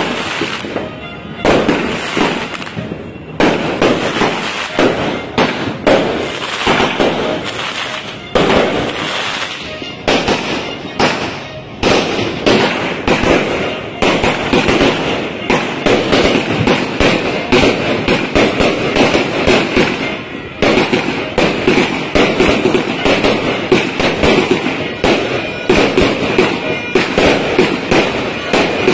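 Multi-shot fireworks cake firing a rapid, unbroken string of shots and aerial bursts, bang following bang many times a second.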